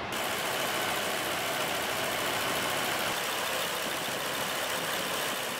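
2006 Ford F-350 Super Duty pickup's engine idling steadily, heard close at the open hood, with an even hiss and a faint high whine over it.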